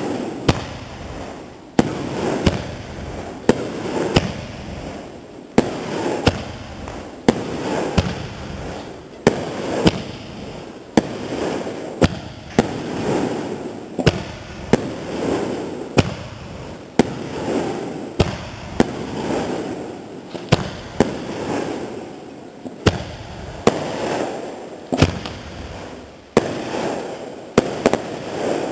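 Aerial fireworks shells bursting in a steady barrage: a sharp bang about once a second, each dying away over a second or so before the next.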